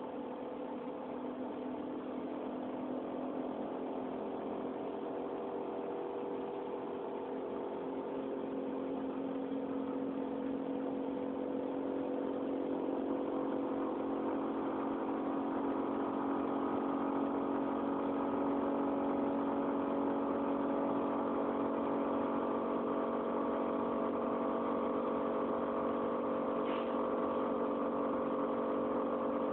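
Refrigerator running with a steady hum made of several held tones, slowly growing louder over the first half and then holding steady.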